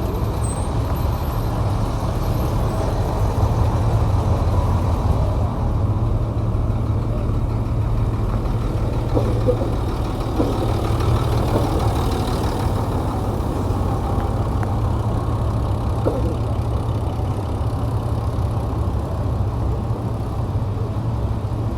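Dump truck's diesel engine idling, a steady deep drone with no change in revs.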